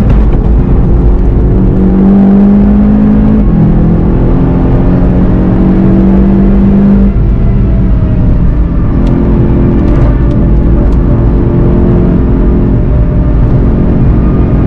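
VW Golf 7 GTI TCR's turbocharged four-cylinder engine pulling hard under acceleration, its note rising for several seconds, breaking at a gear change about seven seconds in, then running on at speed. Heavy wind and tyre rumble underneath.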